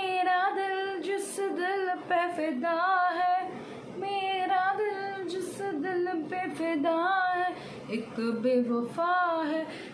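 A girl singing a melodic song line unaccompanied, holding long notes with wavering ornaments and pausing briefly between phrases.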